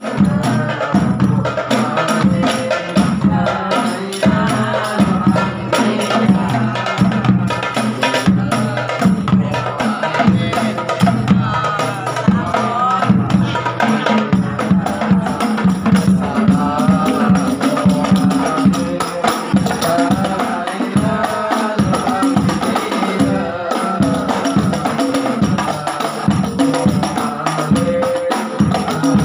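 Rebana frame-drum ensemble playing a dense, fast rhythm, with voices singing a melody over the drums.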